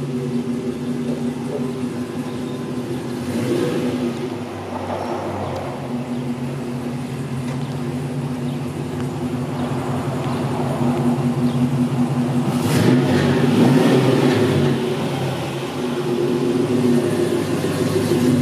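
Crate LS3 V8 in a 1957 Chevrolet 3100 pickup running through its dual exhaust as the truck drives around. It builds to a brief burst of hard acceleration about two-thirds of the way through, then eases back.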